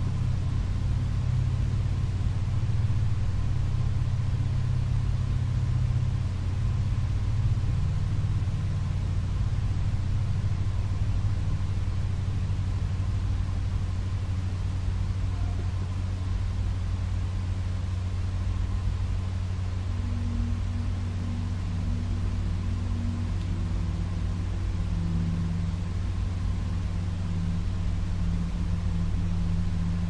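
A steady low rumbling drone of held deep tones that shift pitch a couple of times, with a faint high tone above it.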